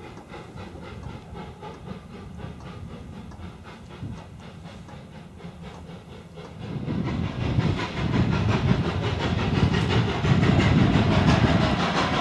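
Full-size Thomas the Tank Engine steam locomotive working under steam, its exhaust chuffing in a quick, even rhythm. About six and a half seconds in it becomes much louder and nearer.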